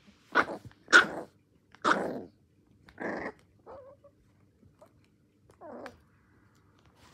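Small black-and-white puppy barking at a TV remote: four sharp yaps in the first three seconds, the second one the loudest, then a couple of quieter growls.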